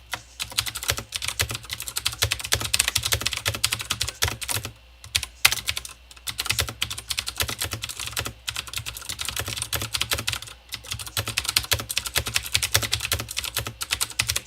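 Fast, continuous typing on a mechanical keyboard with Cherry MX Blue switches: many sharp clicks on every keystroke, loud and tactile, with a few brief pauses in the run.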